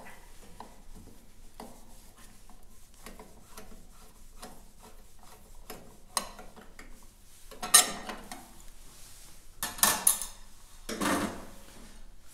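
Screwdriver working a small screw out of the sheet-metal cover of a garage heater's electrical junction box, with light clicks and scraping. Louder metal clinks and clatters follow near 8, 10 and 11 seconds in as the cover plate comes off and the metal pieces are set down.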